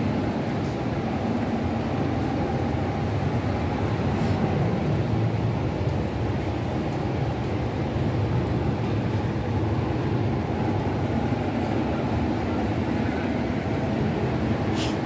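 Busy city street ambience: a steady low rumble of traffic and city noise, with a brief click near the end.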